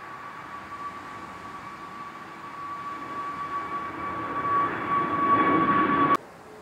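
Boeing 737 jet engines running with a steady high whine over a rushing noise that grows louder as the tail and exhaust swing toward the listener, a deep rumble building toward the end. The sound cuts off suddenly about six seconds in.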